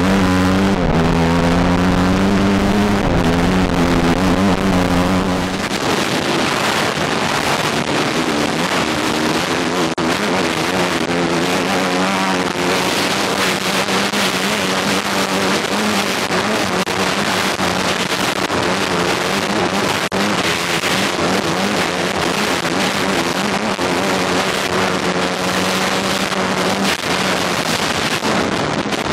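Kawasaki KX250F dirt bike's single-cylinder four-stroke engine running hard at speed, heard close up from a camera mounted on the bike. For the first five or so seconds its pitch wavers up and down with the throttle, then it settles into a steadier, rougher drone with a lot of noise over it.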